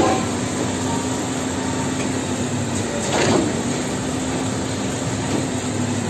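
Concrete pump running steadily with a constant hum. A whooshing surge comes round about every three and a half seconds, once at the start and again about three seconds in, as the pump pushes concrete through the delivery pipe.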